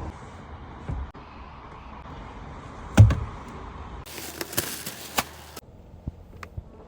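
Scattered knocks and clicks, the loudest a single heavy thump about three seconds in. Shortly after comes about a second and a half of hiss with clicking.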